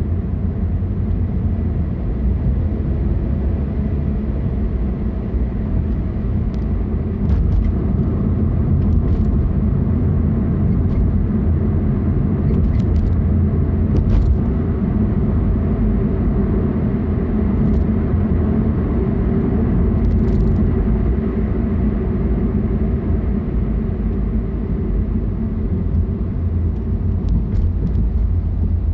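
Car driving on the road: a steady low rumble of engine and tyre noise, with a few faint, short clicks here and there.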